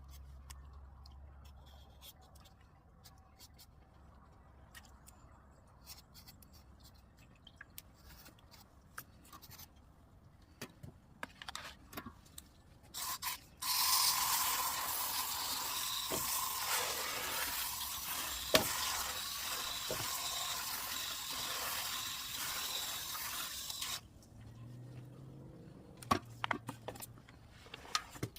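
Light clicks and scrapes of kitchen work, then water running from a tap for about ten seconds, starting and stopping abruptly.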